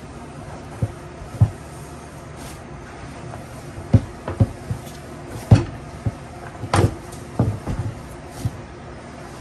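Corn masa being kneaded and beaten by fist for gorditas: about a dozen irregular dull thumps and knocks, with a couple of sharper clacks in the middle.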